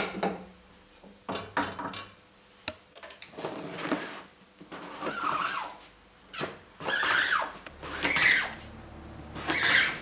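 Screen-printing work: a sharp knock at the start, a short clatter, then several sliding, scraping strokes across the printing screen and press in the second half.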